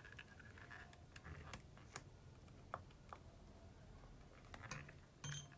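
Near silence, with faint scattered clicks and taps from a plastic trunk-release handle and multimeter probes being handled. Near the end a short electronic beep starts, a multimeter's tone as the repaired touch switch is tested.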